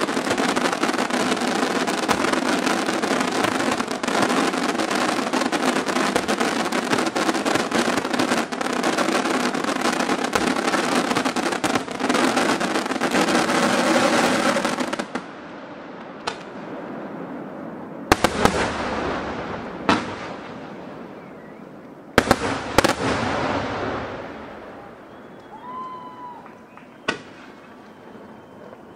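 Aerial fireworks shells bursting in a dense, continuous barrage of bangs and crackling for about fifteen seconds. The barrage then thins to a few separate loud bangs, each with a long echoing tail.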